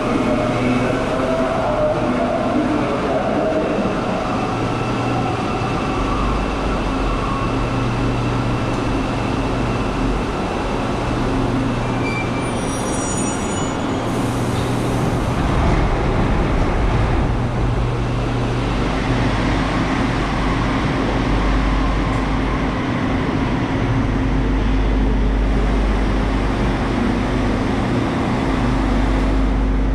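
A Santiago Metro Line 1 rubber-tyred train running, a steady rumble and hum with little change, and a short high-pitched whine about twelve seconds in.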